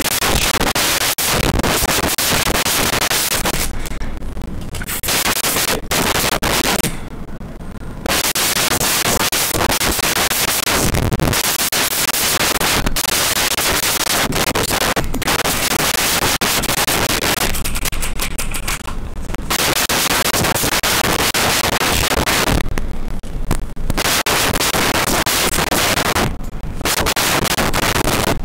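Loud, dense crackling noise like heavy static, with a few short breaks where it drops away.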